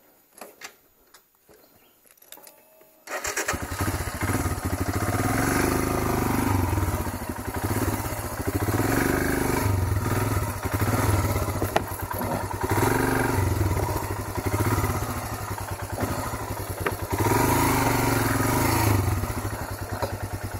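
Royal Enfield Himalayan's single-cylinder engine starting about three seconds in after a few faint clicks, then running and revving up and down in repeated swells under load as the bike is ridden up onto a fallen log.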